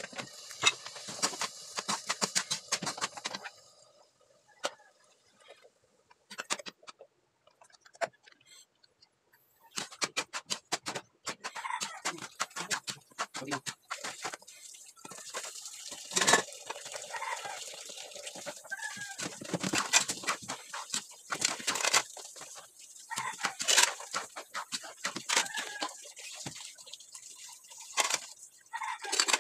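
Steel ladle scraping and clattering in a steel wok while sliced hot dog and corned beef fry with a sizzle, then stirring through thick spaghetti sauce after a pause of several seconds. Chickens cluck in the background.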